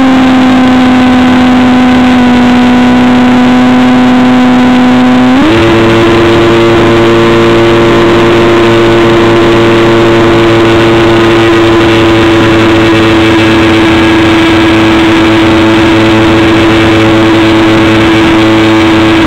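Electric motor and pusher propeller of a Stryker F27C RC flying wing, heard close up from a camera strapped to the airframe: a loud, steady whine over rushing wind. The pitch sits lower for about the first five seconds, then steps up as the motor speeds up and holds steady.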